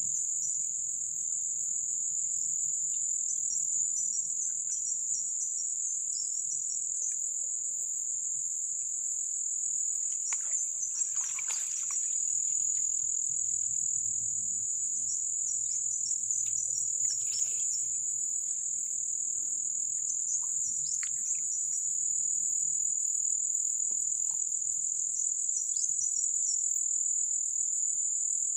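Steady, high-pitched insect chorus, with a few brief soft rustles about ten to twelve seconds in.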